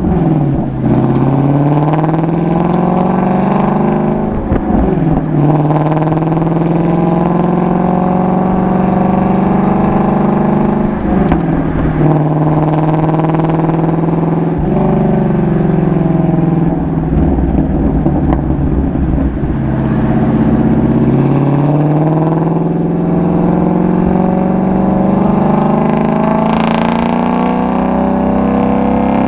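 Ford Mustang Shelby GT350's 5.2-litre flat-plane-crank V8 and exhaust under way, the engine note climbing with revs and dropping back at gear changes several times.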